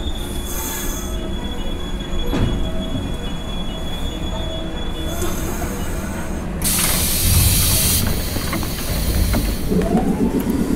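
JNR 113 series electric train rolling slowly into the platform and stopping, its wheels and brakes giving a thin, steady high squeal for the first few seconds. About seven seconds in comes a loud hiss of air from the train.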